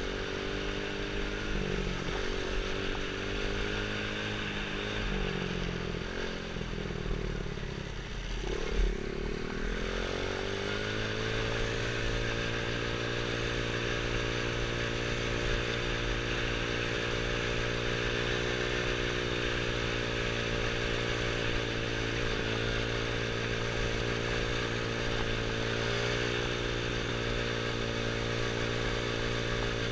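Small 110cc quad's single-cylinder four-stroke engine running under way, heard from the rider's helmet with wind hiss. The engine pitch falls and wavers for the first several seconds, with one sharp knock about nine seconds in. It then climbs and holds a steady, higher pitch at cruising speed for the rest.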